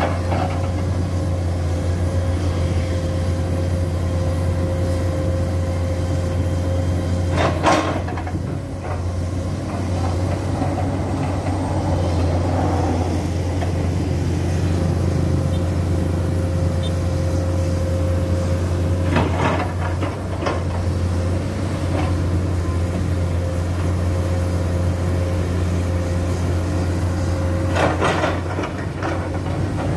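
Diesel engine of a Komatsu PC200 excavator running steadily under working load, a deep drone with a steady higher whine over it, while the long-reach arm digs. A few brief louder noises break in, spaced several seconds apart.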